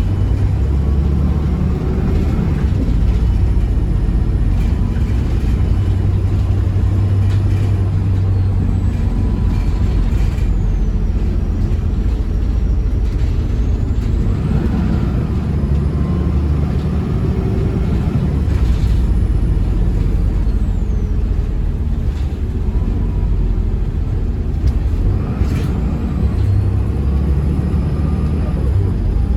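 Turbocharged bus diesel engine running under way: a steady low drone, with a high turbo whistle that rises and falls several times as the engine pulls.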